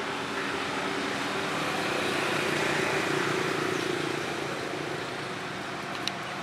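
A motor vehicle passing by: engine hum and road noise swell to a peak about halfway through and then fade. A single sharp click comes near the end.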